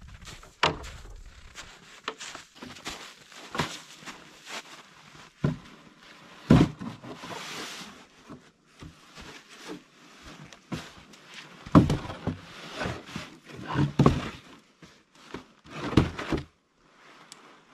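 Chunks of freshly sawn firewood being dropped and stacked into a plastic sled: a series of irregular wooden thunks and knocks, with rustling and handling noise between them.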